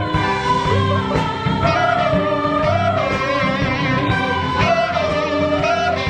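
An all-female show choir singing in harmony over instrumental accompaniment with a steady beat, holding long notes with a wavering vibrato.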